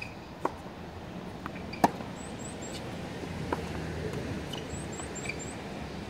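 Tennis ball struck back and forth with rackets in a singles rally: a few sharp pops, the loudest about two seconds in, with faint bounces between them.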